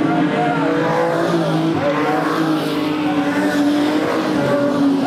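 A pack of production sedan race cars running on a dirt oval, several engines sounding at once as the cars pass, their pitches rising and falling against each other.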